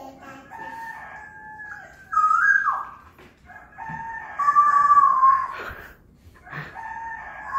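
Cock-a-doodle-doo rooster crowing, in about four long, steady calls with short breaks between them.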